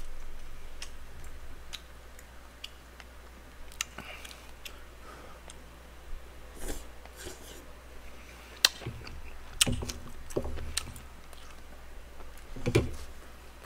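Eating sounds close to a microphone: chewing mouthfuls of pork kimchi stew and rice, with scattered light clicks of chopsticks and a spoon against the dishes.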